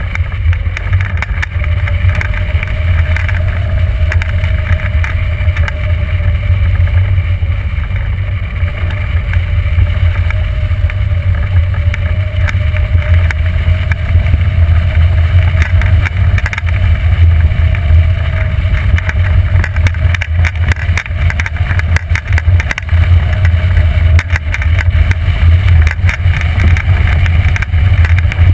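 Airflow buffeting the microphone of a camera mounted on a hang glider in flight, a loud steady low rumble of wind noise, with a faint whistle that slowly wavers in pitch.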